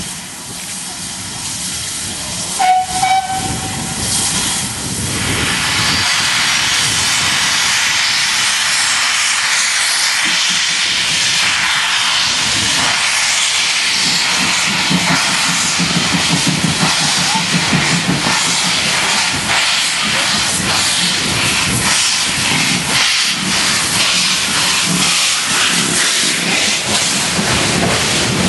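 Steam locomotive giving a short whistle toot about three seconds in, then a loud, steady hiss of steam as it moves slowly past, with steam blowing out low from the cylinder drain cocks.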